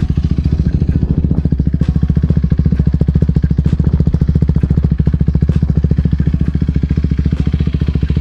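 KTM Duke 390's single-cylinder four-stroke engine idling steadily, loud, with a rapid, even beat, its exhaust's dB killer removed.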